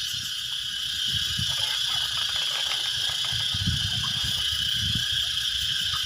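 A bamboo-pole lift net being hauled up out of a muddy stream, water splashing and pouring off the mesh as it clears the surface. Under it run a steady high-pitched insect drone and irregular low bumps.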